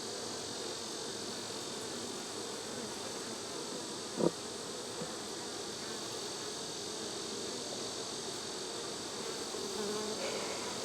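Honeybees buzzing steadily around an open hive, with a steady high insect chorus behind them and a single short knock about four seconds in.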